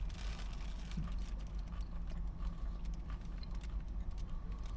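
A man chewing a mouthful of burrito: irregular wet mouth clicks and smacks over a low steady hum.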